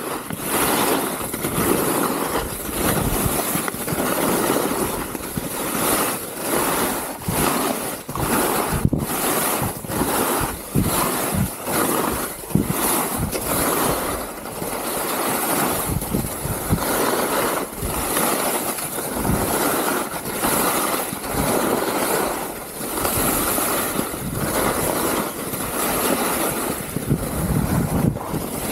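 Wind rushing and buffeting over the microphone of a skier's body-mounted camera during a fast descent, mixed with skis scraping and chattering across firm, rough spring snow through the turns.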